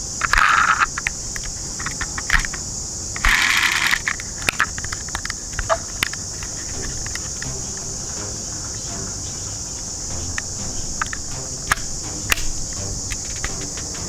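Small clicks and scrapes of hands handling a die-cast toy police SUV and working its doors, over a steady high chirring of insects. Two short rustling scrapes stand out, one near the start and one about three seconds in.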